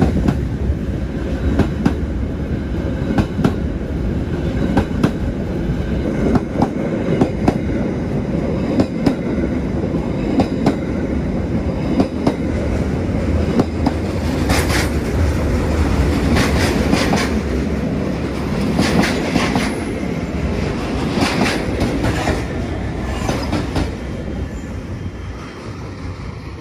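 Train running through a station, its wheels clattering over rail joints in a long series of clicks over a steady rumble, fading away near the end as it passes.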